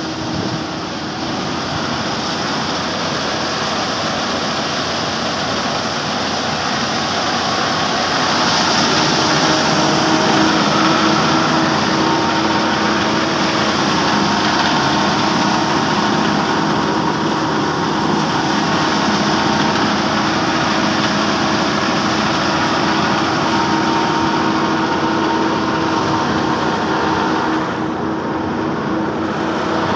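Tractor-powered rice thresher running steadily under load as rice straw is fed in: a dense, continuous mechanical whir and rattle over the steady drone of the New Holland 480 tractor's diesel engine driving it.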